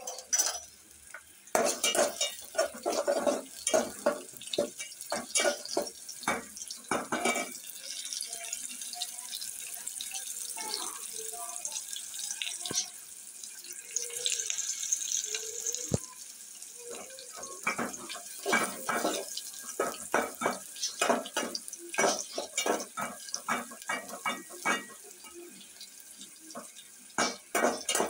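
Perforated metal spoon scraping and knocking against a steel pot while stirring onions, ginger, green chillies and whole spices frying in oil. Between the two bouts of stirring the oil sizzles steadily on its own for several seconds.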